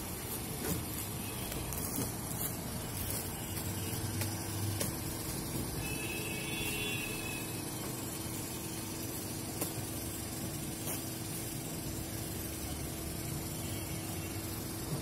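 Steady mechanical hum and hiss, with one constant low tone and a few faint clicks.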